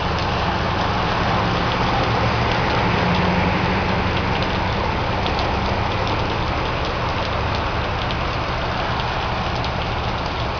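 Steady rain falling, with scattered small raindrop ticks, over the low steady hum of a running vehicle engine.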